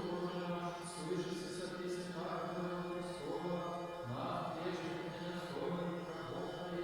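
Slow sung chant: long held vocal notes over a steady low drone, with new phrases coming in every couple of seconds.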